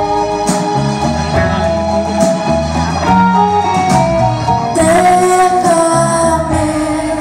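Live pop-rock band playing: electric guitars, bass and drums with a voice singing, and cymbals crashing about five seconds in.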